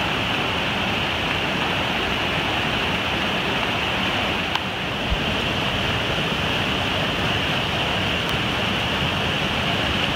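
Flood-swollen, muddy mountain river rushing over rocks in a loud, steady roar of white water. Two brief faint knocks come about halfway through.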